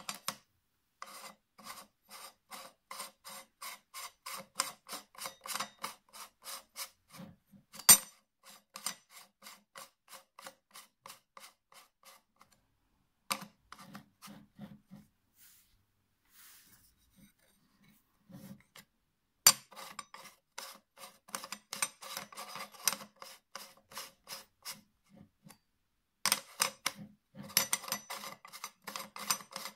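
An 86mm filter adapter ring being twisted by hand on a Sigma lens's front filter thread, clicking about three times a second as it rides over the thread without catching: the adapter's thread is too short to screw on. The clicking comes in two long spells with a pause between, and a few louder clicks stand out about eight, twenty and twenty-six seconds in.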